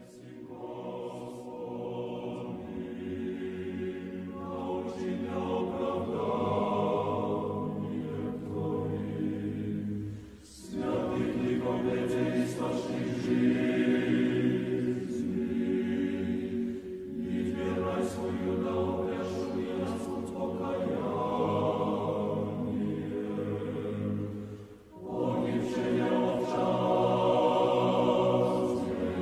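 An Orthodox church choir singing a cappella: slow chant in sustained, full chords, sung in long phrases with brief breaks about ten and twenty-five seconds in.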